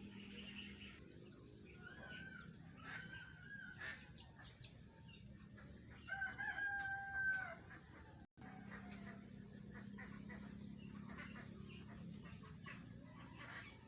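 Roosters crowing several times, the longest and loudest call about six seconds in, over a low steady background hum. The sound drops out completely for a moment a little after eight seconds.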